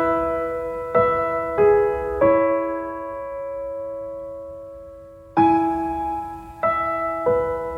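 Slow solo piano music: chords struck one at a time, about a second apart, each left to ring and fade, with one chord held ringing for about three seconds in the middle.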